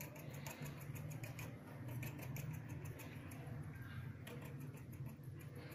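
Quick, light ticks of a steel fork's tines pricking a thin rolled corn-flour dough disc against a stone counter, over a steady low hum.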